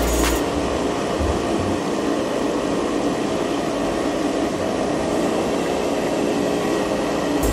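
A small 12 V DC motor turning a fan inside a cardboard-box eco cooler, running with a steady whir as air blows out through the plastic bottle necks.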